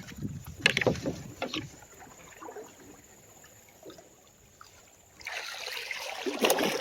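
A canoe working down a shallow, rocky riffle: a few sharp knocks against the canoe in the first two seconds, a quieter spell, then loud rushing, splashing water from about five seconds in with another sharp knock near the end.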